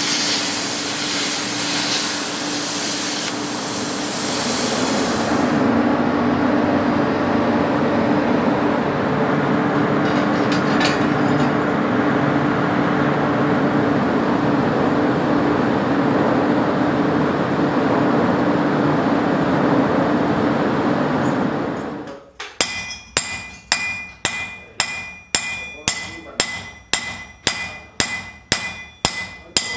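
A cutting torch hisses through steel plate for the first few seconds, followed by a steady rushing noise that stops abruptly. Then a hand hammer strikes a steel knife blade on a block, about two blows a second, each with a metallic ring.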